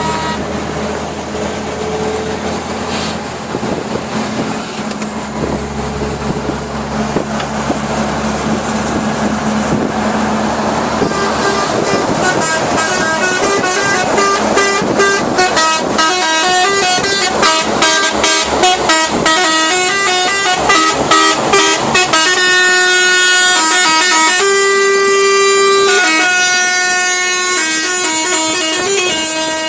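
Truck's multi-note melody air horn ('Iranian' musical horn) playing a tune over a running engine. The tune starts about a third of the way in, speeds up into rapid short notes in the middle, and ends on longer held notes.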